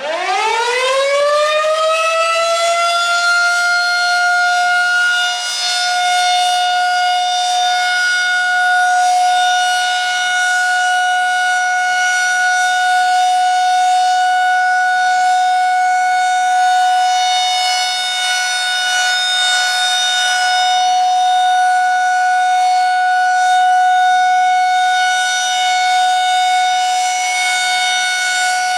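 Federal Signal 2001 SRNB electromechanical tornado siren starting up: it winds up from silence in a rising wail over about the first three seconds, then holds one steady tone, the continuous alert signal.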